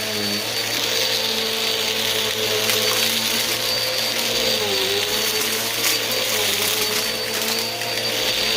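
Bissell vacuum cleaner running steadily, its motor humming with a thin high whine over a broad rush of airflow, the hum dipping briefly about halfway through.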